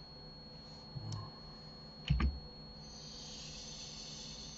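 A few clicks of computer keys, the loudest a quick double click about two seconds in, followed by a soft breathy hiss near the microphone for the last second and a half.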